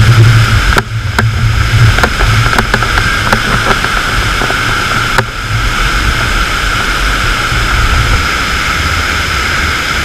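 Iguazu Falls waterfall pouring at very close range, a loud, steady rush of water, with spray and wind buffeting the camera's microphone and a few faint ticks of droplets hitting it.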